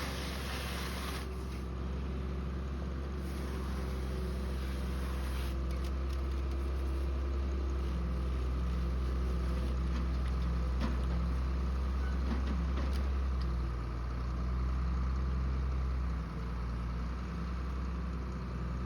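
Farm tractor engine running steadily with a low drone.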